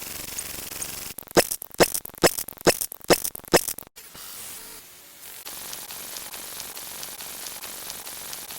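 Sound effect: six sharp clicks, about half a second apart, over a steady hiss.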